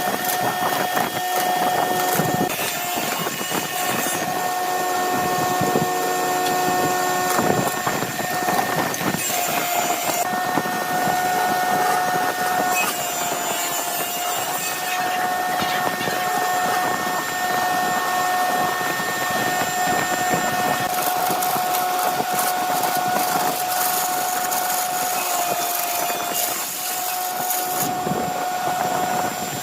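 Wood lathe running with a steady motor whine that dips slightly in pitch now and then, as under load. Over it, a scraping rasp from the spinning epoxy-and-playing-card blank comes and goes in several stretches as it is worked.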